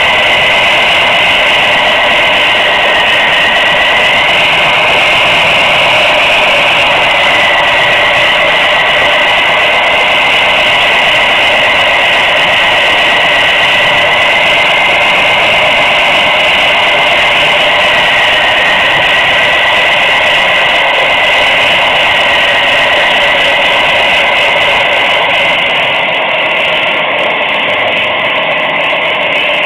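Steady rolling noise of an HO scale model train's wheels on the track, heard through the flat car that carries the camera, with a high whine that wavers slightly in pitch. It grows a little quieter near the end.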